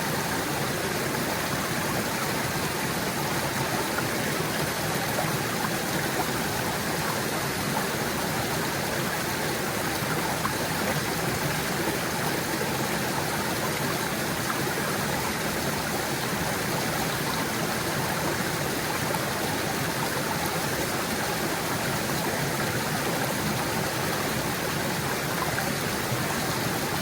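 Small stream flowing and gurgling over rocks, a steady rushing water sound.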